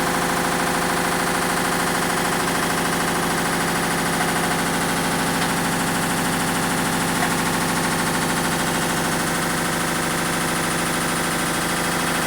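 Hitachi BeatWash washing machine spinning with a loud, steady mechanical drone and a rapid rattling clatter. The noise is the sign of a failed clutch, as the owner diagnoses it.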